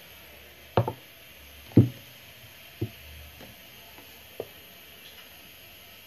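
Four knocks and clunks of a plastic blender jar and bowl being handled. The loudest comes about two seconds in, and the others are weaker and spread over the next few seconds.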